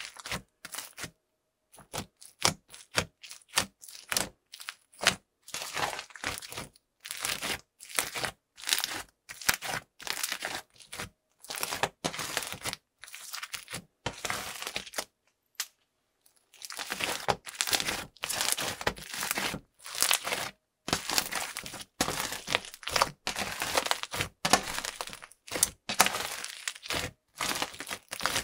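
A big batch of crunchy, bubbly fluffy slime with foam beads being squished and pressed by hand, crackling and popping in quick, irregular bursts. The bursts break off for about a second and a half just past the middle, then resume.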